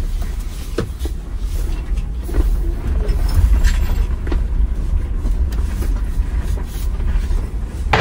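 Low rumble from under a Jeep Wrangler 4xe's rear axle, with a few short, faint groaning creaks from its Dana 44 limited-slip rear differential, a sound likened to a small whale. The dealer treated it by adding friction modifier to the differential fluid.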